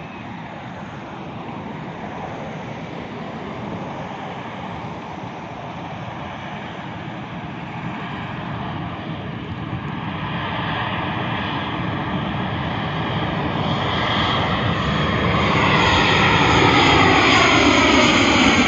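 Twin-engine jet airliner on approach, its engine noise growing steadily louder as it nears. From about two-thirds of the way in, a sweeping whine falls in pitch as the aircraft comes close overhead.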